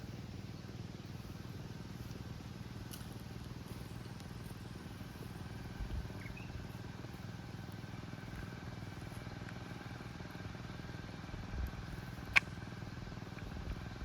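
Small engine running steadily at an even pitch, pulling a weeding chain through a flooded rice paddy. A single sharp click comes near the end.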